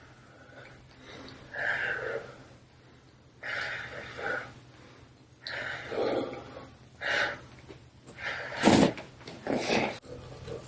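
A person breathing heavily, a series of noisy breaths every one to two seconds, the loudest near the end with a dull knock.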